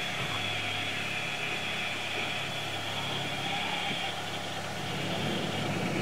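Steady mechanical hum of a submersible's cabin systems, with the life support running, heard from inside the cabin as the sub dives. A higher hiss fades out about four seconds in.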